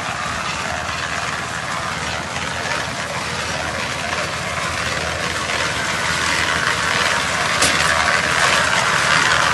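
Portable drum concrete mixer running steadily, its engine and drum drive turning, getting louder in the second half, with a few short knocks near the end.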